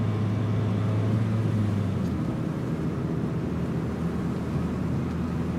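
Car driving on a highway, heard from inside the cabin: a steady low engine and road drone with tyre noise, its hum shifting slightly lower about two seconds in.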